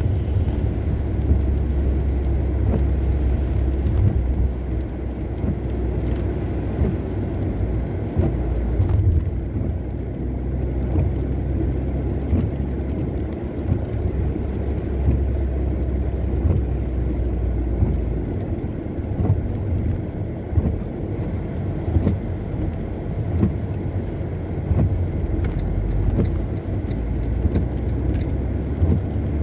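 Car driving on a rain-wet road: a steady low rumble of engine and tyres. A faint, quick, even ticking comes in near the end.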